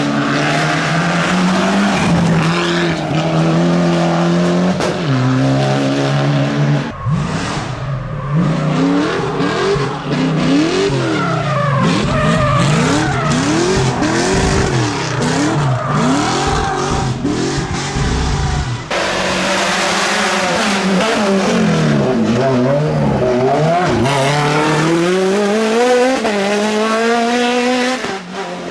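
Race car engines climbing a hill-climb course, revving hard up and down through the gears, the pitch repeatedly rising then dropping. The sound changes abruptly twice, as from one car to another.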